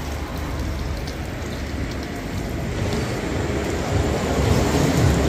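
Fish frying in hot oil: a steady sizzle over a low rumble, growing louder about three to four seconds in.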